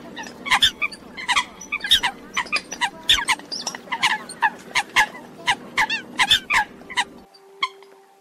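Eurasian coots calling: a rapid, overlapping series of short, sharp, high calls, several a second, over a low steady hum that cuts off about seven seconds in.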